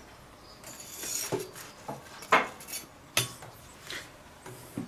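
Metal pizza peel scraping under a pizza on a pizza stone in a mini kamado grill: a scraping hiss about a second in, then several sharp metal clinks and knocks against the stone and grill.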